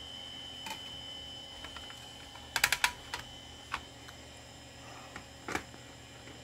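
Sharp clicks and taps: a quick run of four about two and a half seconds in, then a few single clicks, over a faint steady hum.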